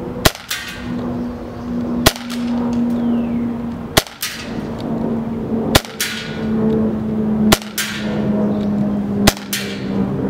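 Umarex H&K USP CO2 airsoft pistol firing six single shots, about one every two seconds. Each is a sharp pop followed a moment later by a fainter tick.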